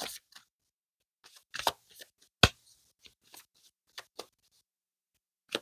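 Deck of tarot cards being shuffled by hand: a scattering of short, soft card clicks and slaps with quiet between them, the loudest about two and a half seconds in.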